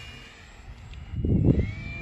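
Small foam RC airplane's motor and propeller whining in flight, rising in pitch and then holding steady near the end as the throttle opens. A short burst of wind rumble on the microphone comes a little past a second in.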